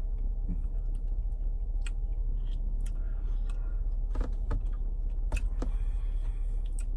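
Steady low rumble of a car interior, with scattered light clicks and scrapes of a spoon in a Blizzard cup while ice cream is being eaten.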